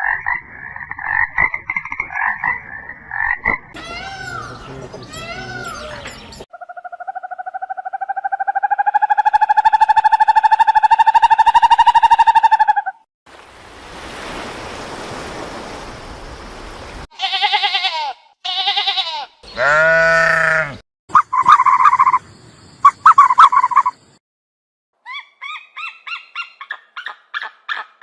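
A run of different animal calls, one after another with short gaps: fast pulsed calls, then one long pulsing call that swells and rises slightly over about six seconds, a stretch of hiss, and several short calls, one of them falling in pitch.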